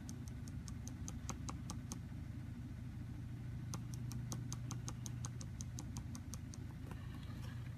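Marker tip tapping dots onto a paper card to stipple a speckle pattern: quick sharp taps about five a second in two runs with a pause between, over a steady low hum.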